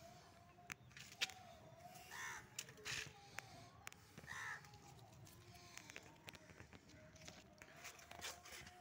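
Faint crow calls, one caw about two seconds in and another at about four and a half seconds, over a quiet outdoor background with scattered light clicks.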